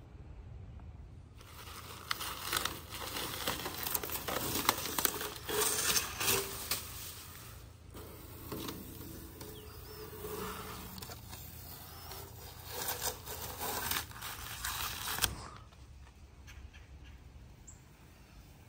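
Masking tape and plastic masking sheet being pulled and torn off, with a dense crinkling and crackling and sharp tearing snaps. It starts about a second and a half in and stops a few seconds before the end.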